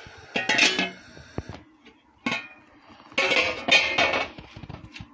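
Metal cookware clinking and clattering against an aluminium cooking pot in several short bursts, the loudest cluster about three seconds in.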